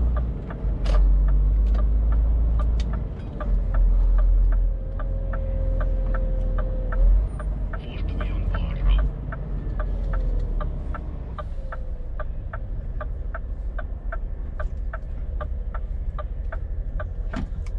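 Inside a Scania truck's cab: the turn-signal indicator ticking steadily, about two to three ticks a second, over the low rumble of the engine as the truck makes a left turn in traffic. The rumble swells a few times in the first half.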